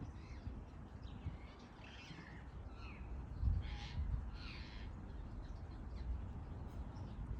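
Birds calling: a few short chirps and calls, the loudest about three and a half to four and a half seconds in, over a steady low rumble.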